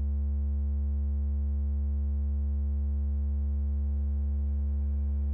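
A steady, loud low sine tone at 71 Hz, the test tone that sets the water in the cymatics vessel vibrating. It is heard as an unchanging low hum with faint higher overtones.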